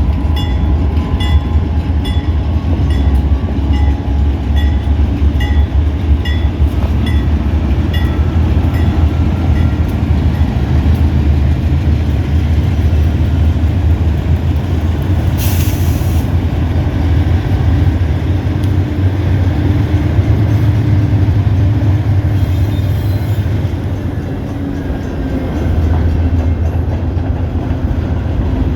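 Pan Am Railways freight train passing with a steady low rumble. A bell rings about twice a second for the first nine seconds or so, and a short hiss comes about halfway through.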